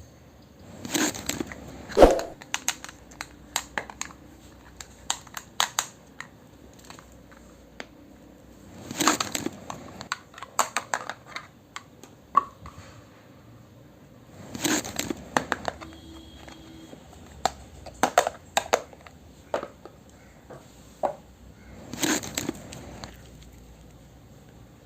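Packaging crinkling and small toy pieces clicking as they are handled, in short clusters every few seconds with quieter gaps between.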